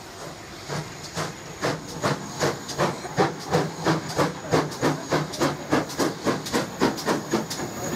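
GWR pannier tank steam locomotive starting away with a train: exhaust beats from the chimney begin about half a second in and quicken and grow louder, from about two to three beats a second, as it gathers speed.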